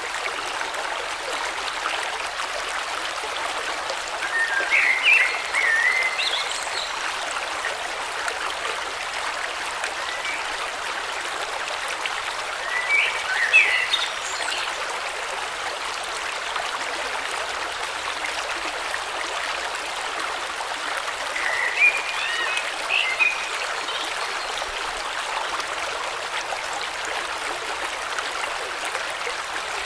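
A river or stream flowing steadily, with a songbird singing three short phrases about eight seconds apart.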